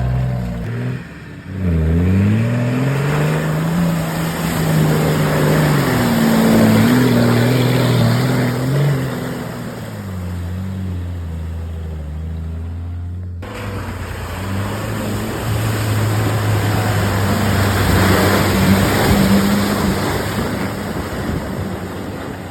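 A 4x4's engine revving up and down under load off-road, its pitch rising and falling repeatedly. There is an abrupt cut about thirteen seconds in, after which the engine runs at a steadier pitch.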